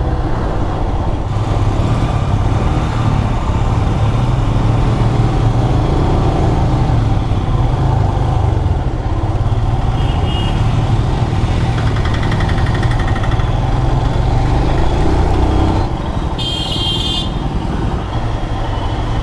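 Royal Enfield Himalayan motorcycle running on the road, its engine rumble mixed with wind noise on the microphone. A horn beeps briefly near the end.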